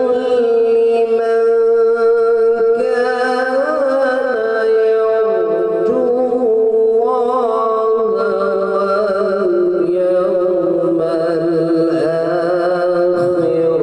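A man's voice reciting the Quran in a slow, melodic chanted style. He holds long notes and ornaments them with wavering turns of pitch.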